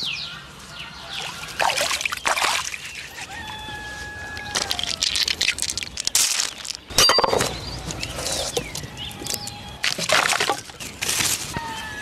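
Freshwater snails poured and tumbling into a woven bamboo basket, rattling in several short bursts. Birds call in the background, with a few thin whistled notes between the bursts.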